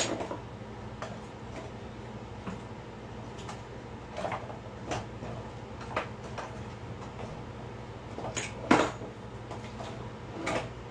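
Kitchen noises: a steady low hum with scattered irregular clicks and knocks, the loudest knock near the end.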